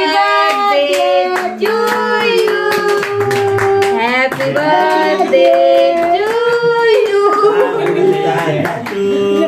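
Several voices singing a song together in long held notes, with hand clapping in time throughout.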